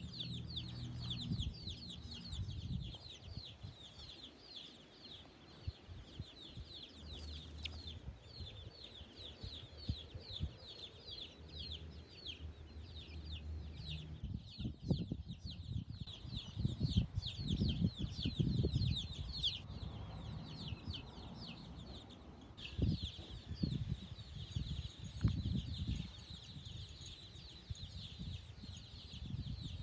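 Domestic chicks peeping continuously, a rapid run of short, high, falling peeps. Irregular low rumbling thumps come in during the second half.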